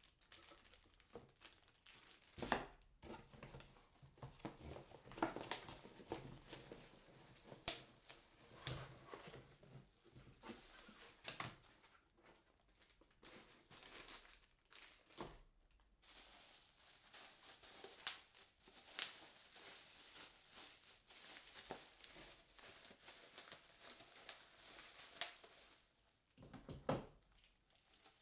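Crinkling and rustling of packaging, with many small irregular clicks and knocks, as things are handled and unwrapped.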